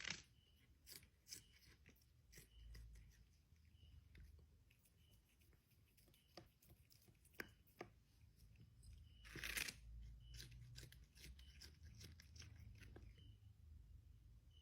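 A pet chewing crunchy food with irregular crunches and tearing, faint overall, with a louder crunch about nine and a half seconds in.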